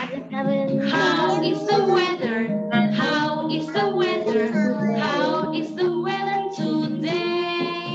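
A children's song: a woman and children singing together over a steady instrumental backing.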